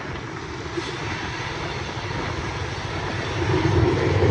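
EMD SD70-series diesel locomotives running at the head of a Union Pacific manifest train, a steady low drone with wind noise, growing louder near the end as the power comes closer.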